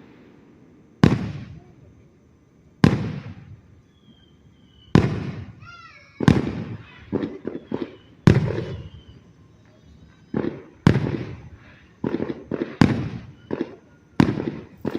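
Fireworks bursting one after another, each sharp bang trailing off in an echo. The bursts come about two seconds apart at first, then in quicker clusters in the second half.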